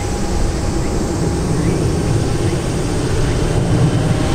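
Airbus A320-200 airliner's jet engines giving a steady low rumble as it climbs away after takeoff.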